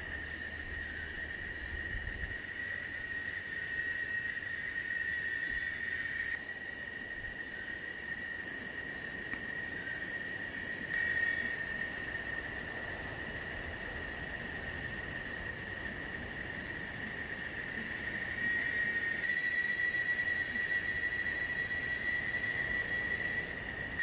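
Steady chorus of insects: one constant high-pitched trill with a fainter, higher buzz above it, and a few faint short downward chirps here and there.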